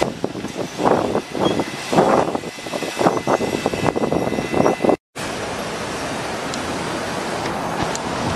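A New York City subway train passing, its wheels clattering irregularly over the rail joints, with a faint steady high whine. About five seconds in the sound cuts off abruptly and gives way to a steady rushing noise.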